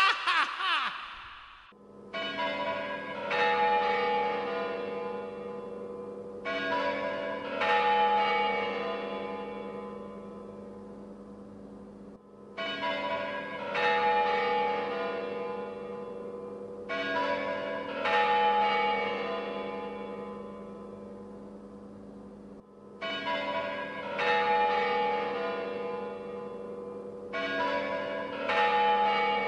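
Church bells tolling: pairs of strikes about a second apart, each ringing on and slowly dying away, the pairs repeating every four to five seconds.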